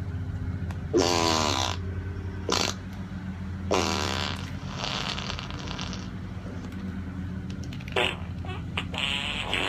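A string of about six fart sound effects played from a fart soundboard, short and separate, the loudest about a second in with a falling pitch. A lawnmower engine drones steadily underneath.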